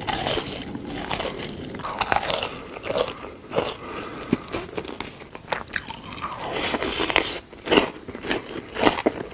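Close-miked eating: irregular crisp crunching bites and chewing of crunchy food.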